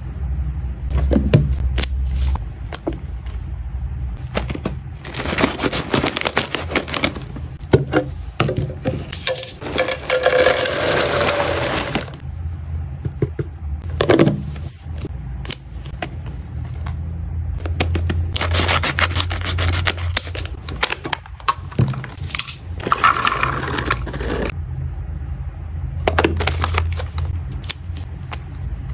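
Dry freeze-dried cat treat cubes rattling and scraping against a clear plastic storage canister as it is handled. The canister's snap-on lid closes with sharp clicks, and there are stretches of rustling from packaging and a paper label roll.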